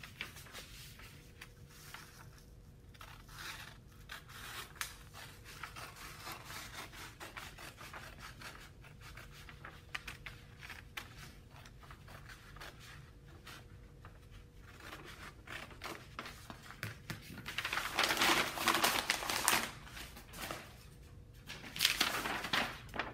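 Scissors snipping through brown pattern paper in a run of quiet cuts, then louder rustling and shuffling of the paper pieces over the last several seconds.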